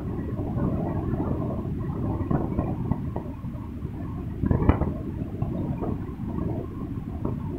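Steady low rumble inside a moving sleeper coach, with one sharp knock a little past halfway.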